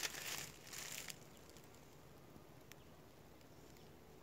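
Dry crunching and rustling of footsteps through dry grass and twigs, stopping about a second in; after that only a few faint ticks.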